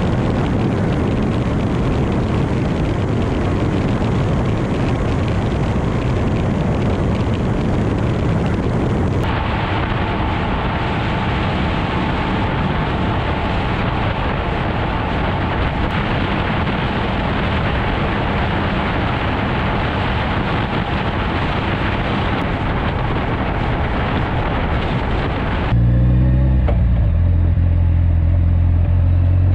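Heavy wind and road rush at highway speed on a 1991 Kawasaki Voyager touring motorcycle, with little engine note showing through. About four seconds before the end, the sound gives way to the bike's inline-four engine, clearly heard at lower speed and rising in pitch as it accelerates.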